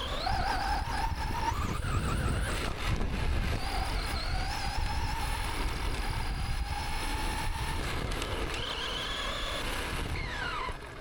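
Electric remote-control car motor whining as the throttle is worked: the pitch climbs at the start, holds steady, climbs again late on and drops away near the end, over a rumble of wheels on the ground.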